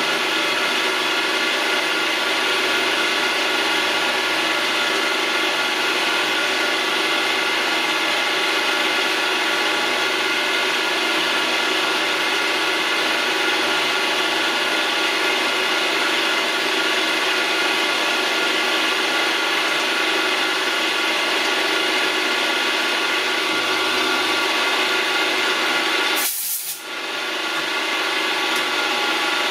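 Milling machine running, its end mill cutting a carburettor mixture screw held in a chuck on a rotary table: a steady motor whine with a rough cutting noise. The sound briefly drops out near the end.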